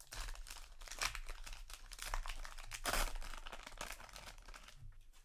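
Foil booster pack wrapper crinkling and tearing as a trading card pack is opened by hand. The crackle comes in uneven handfuls, loudest about one and three seconds in, then eases off near the end.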